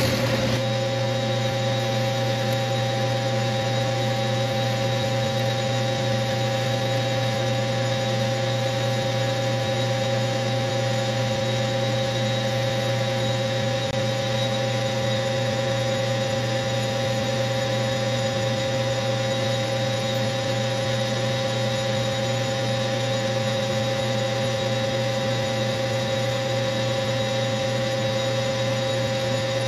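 Small metal lathe running at a steady speed, a constant hum with a steady whine, while a 5/8-inch steel bar spinning in its chuck is faced off and then drilled.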